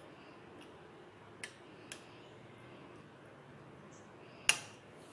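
Metal spoon clicking against a plastic bowl while stirring syrup-soaked tutti frutti pieces: two light taps, then a louder sharp tap near the end.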